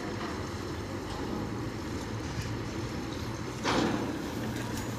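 Mobile crane's diesel engine running steadily under load as it swings a suspended steel arch panel, with a brief rush of noise a little over three and a half seconds in.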